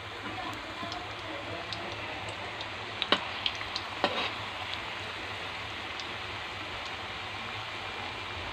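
Star-shaped potato fries deep-frying in hot oil in a metal wok: a steady sizzle of bubbling oil. A few sharp clicks come between about three and four seconds in, as the spatula knocks against the wok while stirring.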